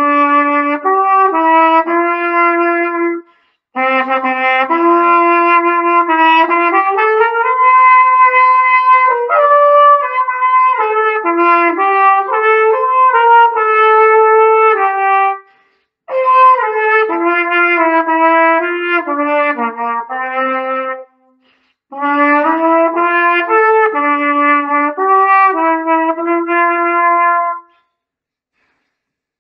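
Unaccompanied solo cornet playing a slow melody in phrases, including one long held note, with short breaths between phrases and stopping near the end.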